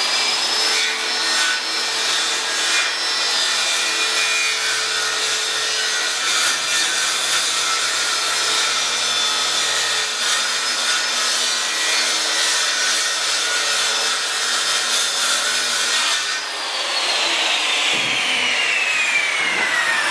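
Corded circular saw cutting a long straight line through a sheet of OSB, its motor whine steady under load. About sixteen seconds in the trigger is released and the blade winds down with a falling whine.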